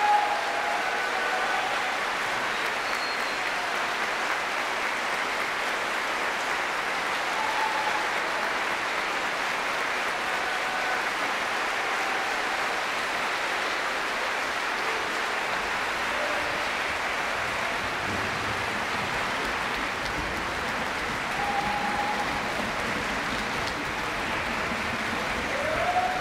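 Audience applauding steadily, with a few short calls rising above the clapping.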